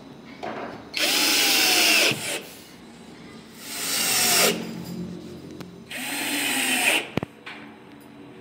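Cordless drill running in three short bursts of about a second each, driving its bit into a laminated board. Its motor pitch rises as it spins up and drops as it stops. A sharp click follows the last burst.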